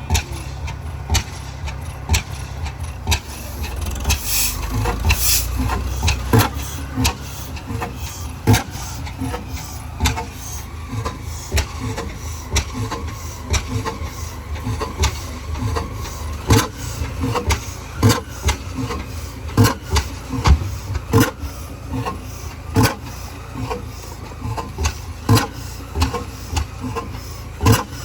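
Large antique stationary engine being started, turning over with sharp, irregularly spaced firing pops over a low rumble, never settling into a steady run.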